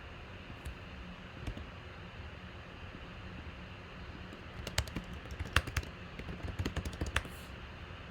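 Computer keyboard typing: a short run of irregular keystroke clicks about halfway through, over a steady low hum.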